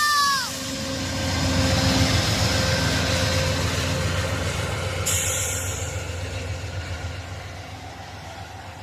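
Amtrak passenger train arriving: the tail of its horn drops in pitch and cuts off just after the start. The locomotive and cars then rumble past on the rails, loudest about two seconds in and slowly fading, with a short hiss of air around five seconds in.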